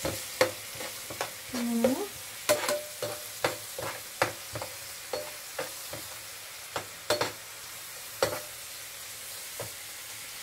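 Chopped onion, green chilli and carrot sizzling in oil in a non-stick frying pan, stirred with a perforated metal skimmer that clicks and scrapes against the pan. The clicks come about twice a second at first and thin out after about eight seconds.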